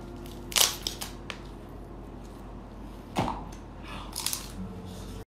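Cooked king crab shell being pulled apart by hand: a few sharp cracks and crunches, the loudest about half a second in, with more near the end as he bites into the meat.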